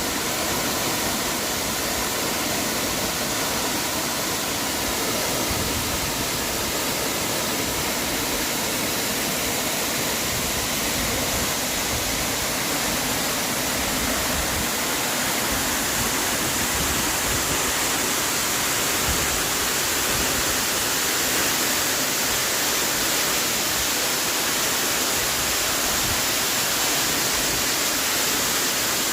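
Running water rushing steadily, an even unbroken hiss.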